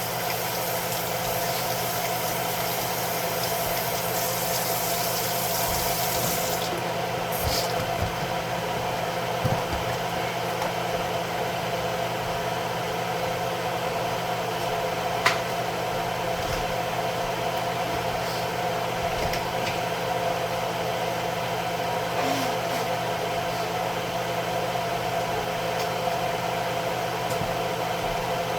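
Kitchen tap running as hands are washed, shutting off about six seconds in, over a steady mechanical hum that continues throughout. A single sharp click comes about halfway through.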